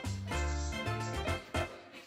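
Background music: an instrumental tune over a bass line whose notes change every few tenths of a second.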